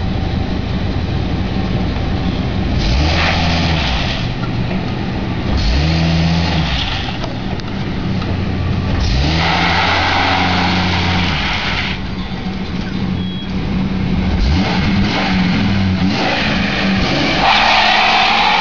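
U-Haul dually box truck's engine revved hard in neutral in repeated bursts of a few seconds each, falling back toward idle between them, then held high near the end as it is readied for a neutral-drop burnout.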